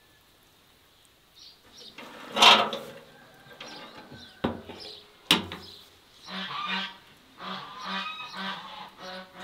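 Farmyard poultry honking: one loud call about two seconds in and a run of repeated honks through the last third. Two sharp metal clanks from the lid of a barrel charcoal grill come about halfway through.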